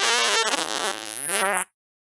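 A long, drawn-out fart: a buzzing tone whose pitch sags and then rises again, cutting off abruptly about a second and a half in.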